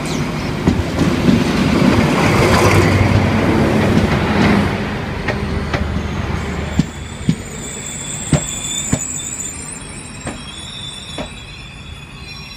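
A diesel locomotive passes close by, its engine loud for the first few seconds. The coaches then roll past with a string of sharp wheel clacks over the rail joints, and the sound fades as the train draws away.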